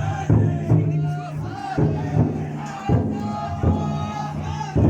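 A group of festival float bearers chanting together in unison, with heavy drum beats struck under the voices every half second to a second.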